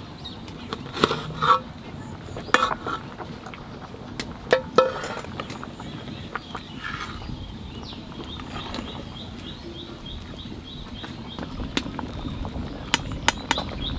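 Sharp metal clinks from handling an aluminium cooking pot, its aluminium plate lid and a metal ladle as boiling khichuri is stirred. The clinks come in a few short clusters, with a brief ring after each.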